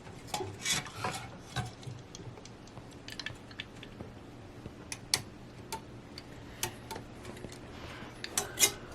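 Irregular small clicks and taps of plastic and metal PC parts being handled while cable connectors are fitted, with a louder pair of clicks near the end.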